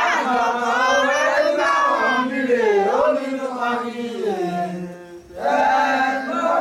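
Voices chanting an Ifa ritual chant in long drawn-out phrases, breaking off briefly about five seconds in and then starting again.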